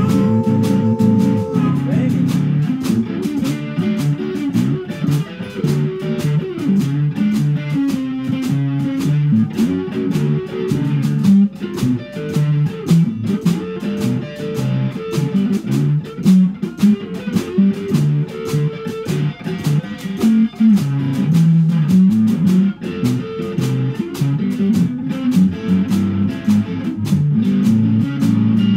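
A small blues band playing live, with guitar over a steady drum-kit beat in an instrumental stretch without singing.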